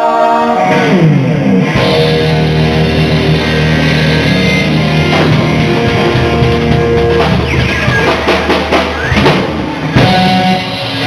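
Live band playing an instrumental passage on drum kit, electric guitar and bass. A held chord gives way about half a second in to a falling run, then the drums and guitar play on.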